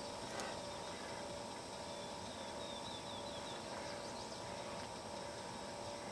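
Quiet rural outdoor background with a steady faint hiss, and a quick run of short high bird chirps about two and a half seconds in. A single small click comes near the start.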